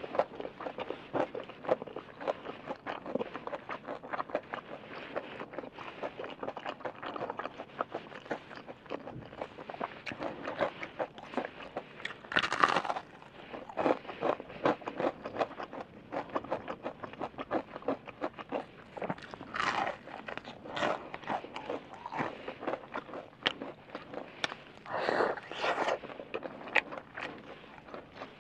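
Close-miked biting and chewing of crispy breaded fried chicken: a steady run of small crunches and chewing clicks, with a few louder, longer crunches about halfway, two-thirds and nine-tenths of the way through.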